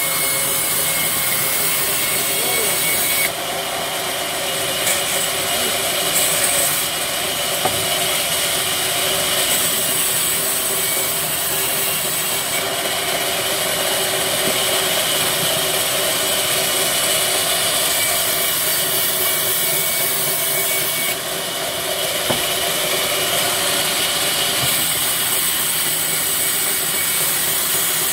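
Sawmill's vertical band saw running and ripping rain tree wood into planks: a loud, steady, hissing saw noise over a machine hum, shifting briefly about three seconds in and again about twenty-one seconds in.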